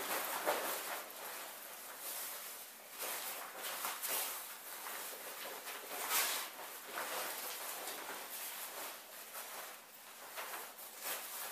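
Rustling of waterproof, windproof pants being pulled on and adjusted at the waist, in a series of irregular swishes.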